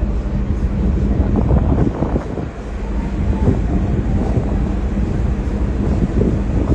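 Wind buffeting the microphone over a steady low hum from the cruise ship's machinery, easing briefly about two seconds in.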